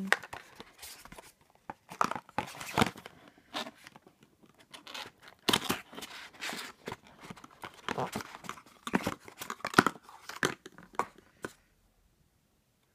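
A small cardboard gift box being pulled out of its slot and opened by hand: irregular scraping, rustling and tearing of card and packaging, stopping about eleven seconds in.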